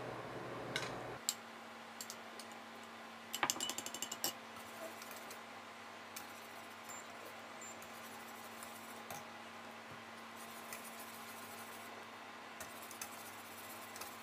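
Wire whisk stirring a creamy mixture in a stainless steel pot, its wires clicking against the pot, with a quick run of louder metallic clinks a few seconds in. A faint steady hum underneath.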